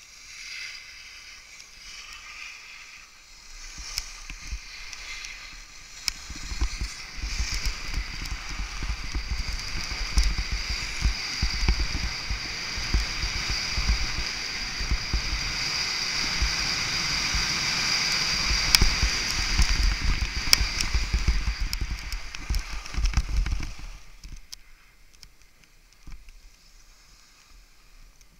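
Skis hissing and scraping over snow, with wind buffeting the microphone, building as speed picks up and dropping away sharply about four seconds before the end as the run slows.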